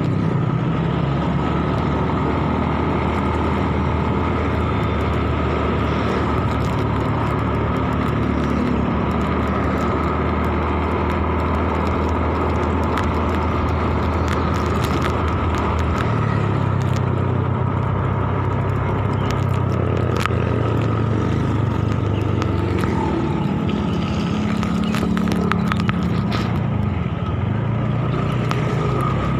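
Small motorcycle engine running steadily under way, with wind and road noise; the engine note shifts to a different pitch about halfway through, and other motorbikes and cars pass.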